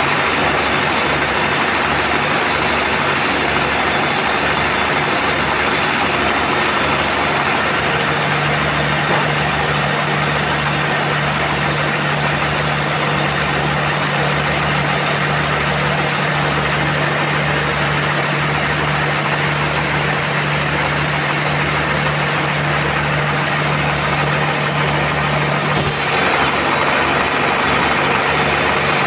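Sawmill machinery running loudly and steadily, with a regular low pulse underneath. About eight seconds in, the high hiss drops away and a steady low hum stands out; the hiss returns near the end.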